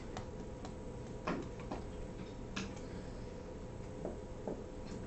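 Scattered small clicks and knocks, about seven in all, the loudest a knock about a second in, over a faint steady electrical hum: room noise of a class writing on whiteboards.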